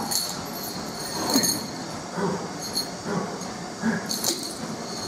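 Metal chain and handle clinking against a weight plate in repeated short bursts, roughly once a second, each with a dull low knock, as the plate is worked on its chain during a plank exercise.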